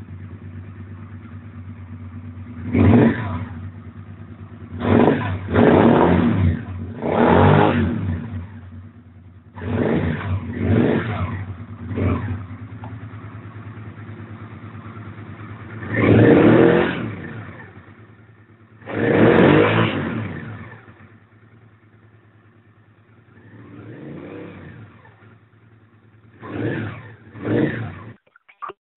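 Suzuki SV650's 645 cc V-twin idling with about a dozen sharp throttle blips, some single and some in quick pairs, then the engine shuts off about a second before the end.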